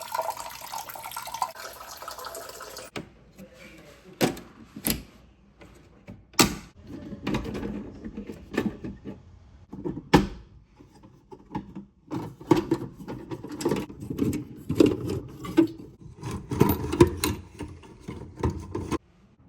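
Water rushing for about three seconds, then a string of irregular knocks and clatter during plumbing work, stopping abruptly shortly before the end.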